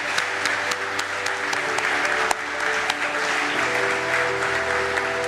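Audience applauding, with sharp individual claps standing out, over instrumental music playing slow held chords that change every couple of seconds.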